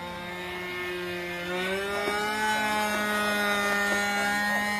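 Small radio-control model engine running steadily, speeding up slightly and getting louder about a second and a half in.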